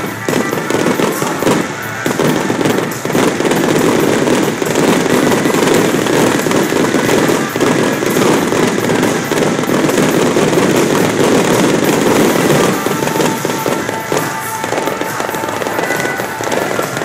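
Fireworks barrage: shells launching and bursting in rapid succession, a dense crackle of overlapping reports that thins out about thirteen seconds in. The show's taiko and shamisen music plays underneath.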